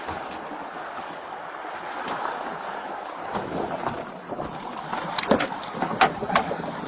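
Water and wind rushing around a boat, with a string of short knocks and bumps in the second half as people and gear come against the hull.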